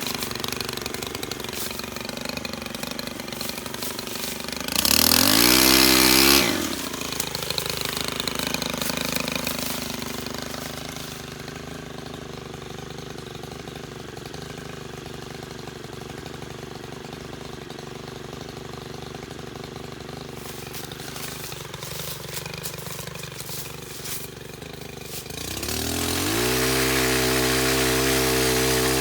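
STIHL KM 131R Kombi power head's small 4-MIX petrol engine, driving a pole saw, idling and then revved up twice. The first rev is brief, about five seconds in; the second comes near the end, is held for a few seconds and then drops back.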